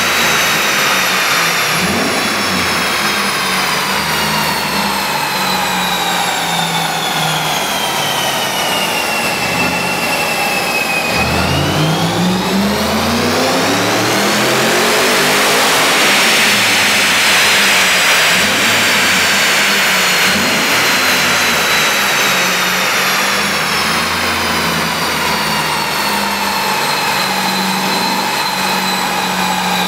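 Supercharged V8 of a 2006 Ford Mustang running on a chassis dyno, with a high whine over the engine. The pitch sinks slowly for about ten seconds, then climbs steeply as the engine is revved hard, and winds down slowly again through the rest of the run.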